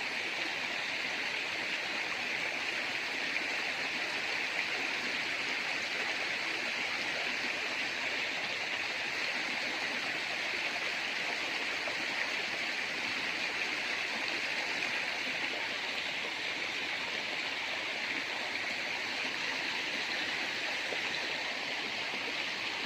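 Small river running steadily: a continuous, even sound of flowing water.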